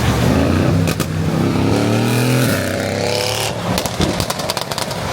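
Mercedes-AMG C63 S V8 revving hard, its engine note sweeping up and down, then a rapid run of exhaust pops and crackles in the last second and a half.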